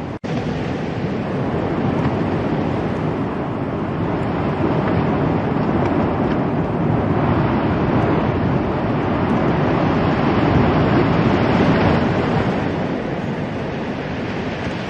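Steady rushing noise like wind blowing over the microphone, swelling a little in the middle. There is a brief gap just after the start.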